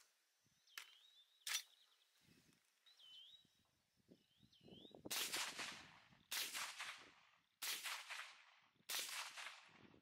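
Four suppressed rifle shots, about a second and a quarter apart, from an AR-15-style rifle whose .223 suppressor is deliberately misaligned on a stop nut, so that each bullet strikes the suppressor's baffle core. Two sharp clicks come about a second in, before the shots.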